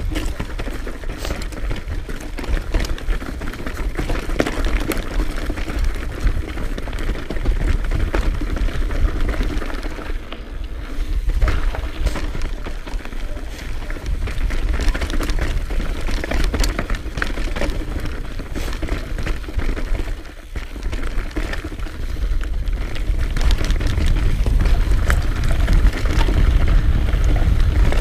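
Trek Remedy 9.7 full-suspension mountain bike riding down a rocky trail: the tyres crunch and rattle over stones and gravel under a dense run of small clicks and knocks from the bike. A low rumble sits underneath throughout.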